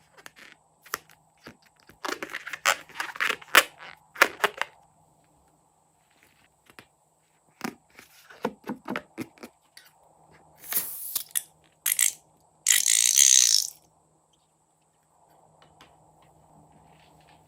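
Handling noises from slime making: scattered clicks, crinkles and scrapes. Two longer hissy bursts come about two-thirds of the way through, each lasting about a second.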